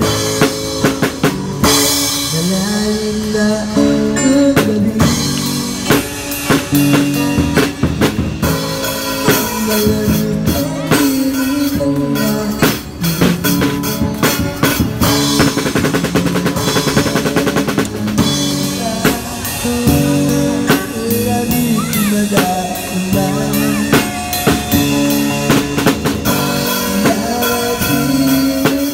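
Live drum kit played in a busy groove, with snare, bass drum, rimshots and crashes on Sabian cymbals throughout. A pitched melody with bending notes runs over the drums, played on an electric guitar.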